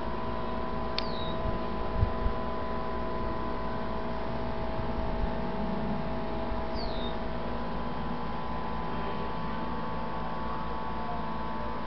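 A steady hum with several held tones. Two faint, short, high chirps fall in pitch, about a second in and again some six seconds later, and a couple of soft thumps come about two seconds in.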